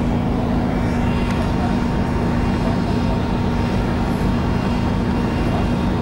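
Cruise ship's machinery humming steadily on the open top deck, a constant low drone, with wind rushing over the microphone.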